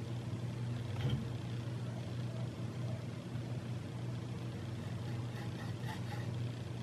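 A steady low hum with faint, slow scraping strokes of a small hand file on the top rail of a Zoraki HP-01 air pistol, starting to wear in a groove for a scope mount. A light click comes about a second in.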